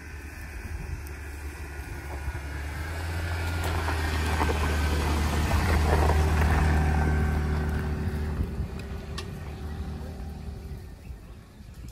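2010 Jeep Wrangler JK's 3.8-litre V6 engine running at low speed as the Jeep drives past. It swells to its loudest about halfway through as it passes close, then fades as it drives away.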